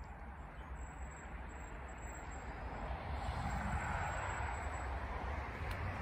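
Wind buffeting the phone's microphone as a low rumble, with a rushing hiss that grows louder about halfway through.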